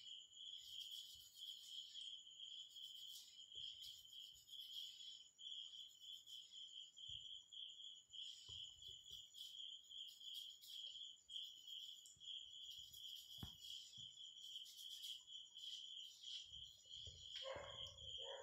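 Near silence with a cricket trilling steadily in the background, a high pulsing chirp that never breaks, and a few faint rustles.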